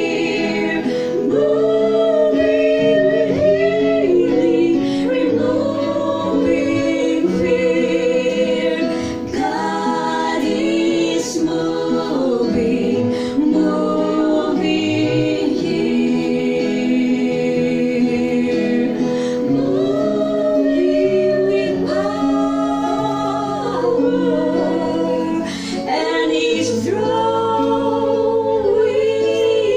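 Three women singing a worship song together into microphones, accompanied by an electric keyboard playing held chords.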